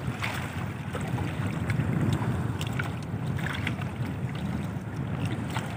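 Wind buffeting the microphone over the sea moving around an outrigger fishing boat, an uneven low rumble, with a few faint ticks.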